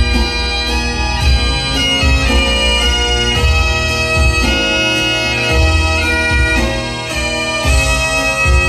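Great Highland bagpipe played solo: a steady drone under a chanter melody that moves quickly from note to note.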